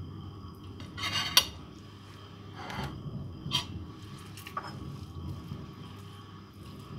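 Ceramic plates and a fork clinking and scraping as food is handled on them: a scrape ending in a sharp clink about a second in, then three lighter clinks.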